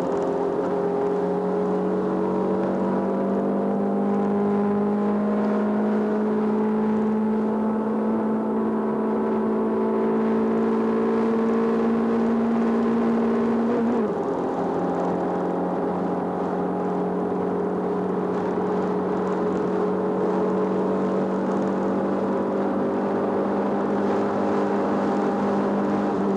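Competition car engine heard from inside the cabin, pulling under load. Its pitch climbs slowly through one gear, drops sharply with an upshift about halfway through, then climbs slowly again.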